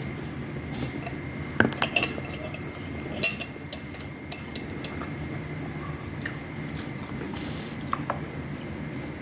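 Cutlery clinking against a plate a few times during a meal, with a steady low hum underneath.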